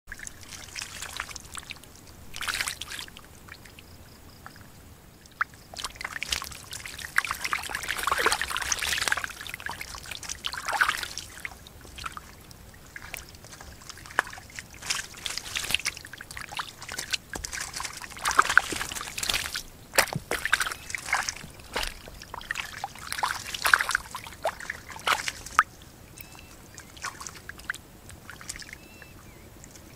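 Fish splashing and wriggling in a shallow muddy pool of water: irregular bursts of sloshing and trickling with sharp little splashes, coming and going in clusters with quieter pauses between.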